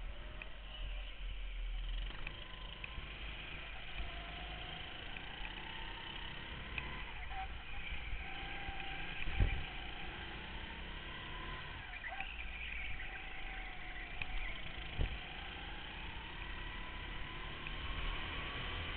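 Go-kart engines heard from on board during a race, the engine pitch rising and falling with the throttle through the corners. Two sharp knocks stand out, one about halfway through and another about fifteen seconds in.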